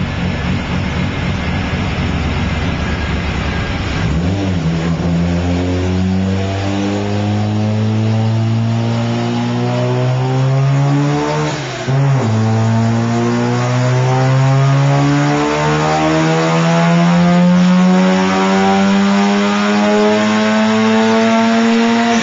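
1982 Mazda RX-7's 13B Turbo II rotary engine running on a chassis dyno under load. It runs rough and low for the first few seconds, then the pitch climbs steadily. Near the middle it dips sharply and then climbs again.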